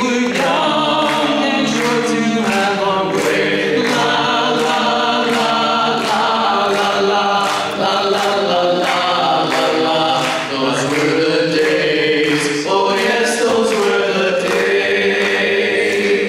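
Four-man barbershop quartet (tenor, lead, baritone and bass) singing a cappella in close four-part harmony, holding long sustained chords.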